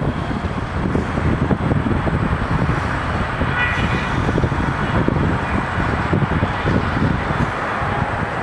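Steady low rumble of heavy demolition machinery, a crane working a clamshell bucket into a concrete office building, with irregular low knocks and a brief high metallic squeal about four seconds in.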